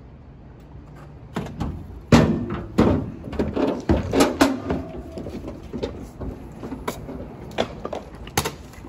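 A door bangs open, then several people's footsteps clank and clatter down metal stairs in a string of sharp knocks.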